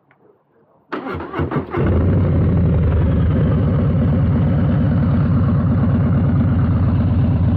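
2022 Harley-Davidson Low Rider S's 117 Milwaukee-Eight V-twin with a Two Brothers 2-into-1 exhaust being started: the starter cranks about a second in, the engine catches a moment later and settles into a loud, steady idle.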